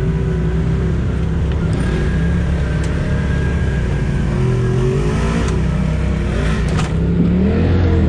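Side-by-side UTV engine running and revving up and down. The pitch rises and falls several times in the second half.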